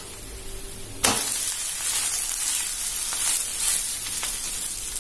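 Prawn masala dosa sizzling on a hot dosa tawa; about a second in it is flipped with a spatula, with a sudden sound, and the sizzle turns louder as the masala side meets the hot pan.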